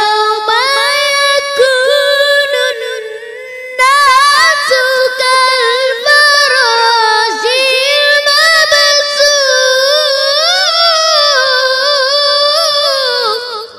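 A boy's high voice reciting the Quran in melodic tilawah, drawing a phrase out over long, wavering, ornamented notes. It softens about three seconds in, comes back strongly a second later, and stops near the end.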